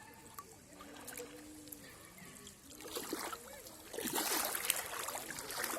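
Water splashing and trickling, getting louder about three seconds in, with faint voices before that.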